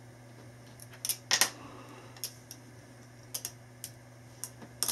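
Scattered light clicks and taps, the loudest about a second and a half in, from a single-edge razor blade cutting splicing tape and being set down on a wooden desk during quarter-inch tape splicing. A faint steady hum runs underneath.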